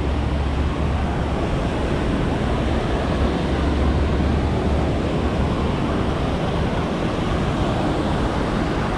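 Ocean surf washing onto a sandy beach, a steady rush of noise, with wind buffeting the microphone as a low rumble through roughly the first half.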